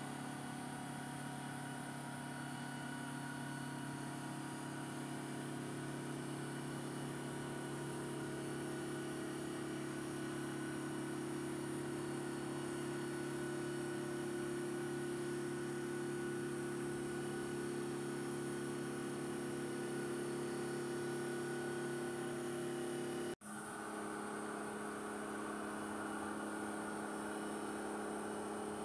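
Bridge saw's water-cooled diamond blade cutting a granite slab: a steady machine hum with a hiss underneath. The sound breaks for an instant about 23 seconds in, then carries on with its hum at a slightly different pitch.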